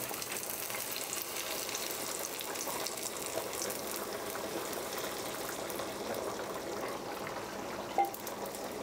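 Masoor dal with eggs boiling in a pan, a steady bubbling with small pops. A single short knock comes near the end.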